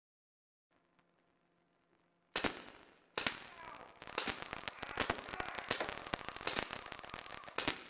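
Film-set firing effects during a gun-battle take: a sharp crack about two seconds in, another a second later, then a quick run of cracks for about three and a half seconds, each with a short ringing tail.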